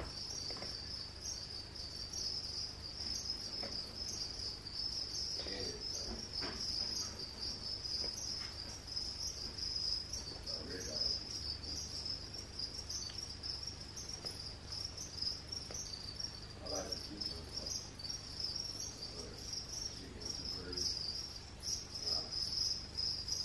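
Pet-store feeder crickets chirping continuously, a steady high-pitched pulsing chirp that never lets up; loud enough to keep the owner awake at night.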